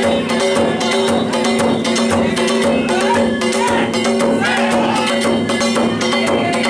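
Danjiri float festival music (narimono): rapid, dense clanging of hand gongs and beating of a taiko drum, with a held pitched melody line over them, played without a break.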